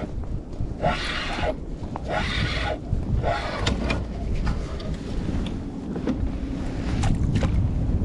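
Handling noise from a fishing rod and reel being worked while a hooked fish is reeled in to a kayak, with scattered clicks and knocks and a few short hissing bursts in the first four seconds. Low wind rumble on the chest-mounted microphone runs underneath.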